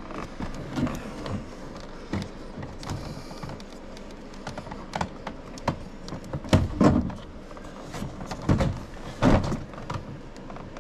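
Scattered clicks and rattles of plastic wiring-harness connectors being handled and worked loose inside a car door, with a few louder knocks in the second half.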